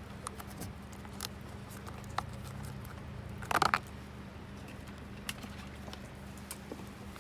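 Wood campfire crackling: scattered sharp pops and snaps over a steady low background hum, with a brief burst of louder crackles about halfway through.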